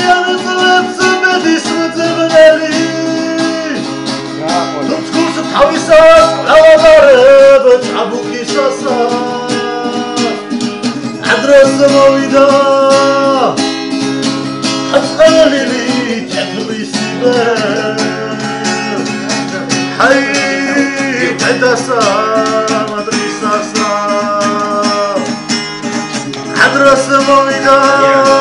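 A man sings a Georgian song, accompanying himself on a strummed acoustic guitar.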